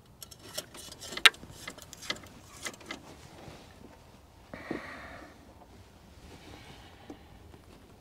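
Light clicks and taps of small parts of a fuel-line quick-connect fitting and its 3D-printed installer tool being handled, the sharpest click a little over a second in. A short soft rustle comes about halfway through.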